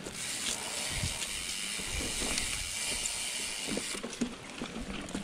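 Mountain bike rolling downhill on a dirt trail: a steady hiss of tyres and the coasting freehub ratchet buzzing, which stops about four seconds in, with small knocks and rattles of the bike over roots and bumps.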